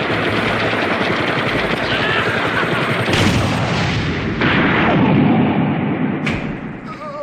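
Loud battle sound effects: a dense stretch of rumbling blasts, with stronger surges about three seconds in and again about four and a half seconds in, fading away near the end.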